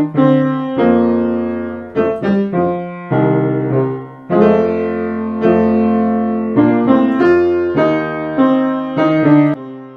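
Background piano music: notes and chords struck and left to fade, a new one about every second.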